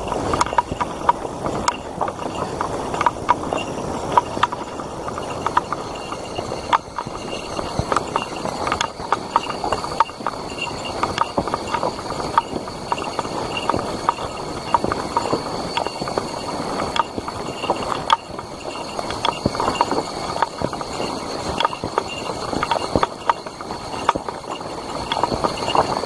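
Footsteps walking on a dirt forest trail, with higurashi (evening cicadas) calling steadily behind them.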